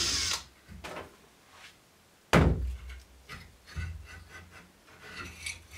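A cordless drill set down hard on a wooden workbench top, giving one loud thunk about two seconds in, followed by several lighter knocks and clunks.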